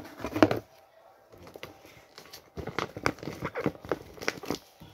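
Close-up handling noises on a cardboard box: a short flurry of taps and crinkles, a pause, then a longer run of quick clicking taps and crackles starting about halfway through.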